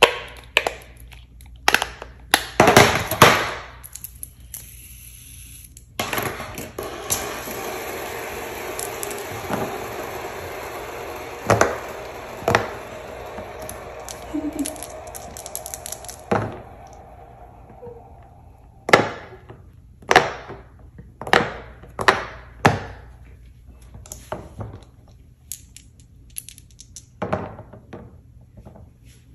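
Silicone pop-it fidget toys being pressed, with sharp clicks and pops, and small plastic pieces knocking on the silicone board. The clicks come in a cluster at the start and again about once a second late on, with a steady hiss for about ten seconds in the middle.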